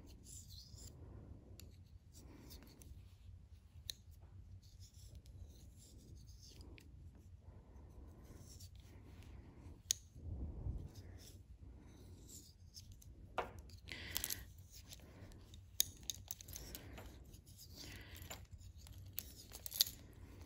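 Faint, irregular clicks and soft rubbing of metal knitting needles and yarn as stitches are worked.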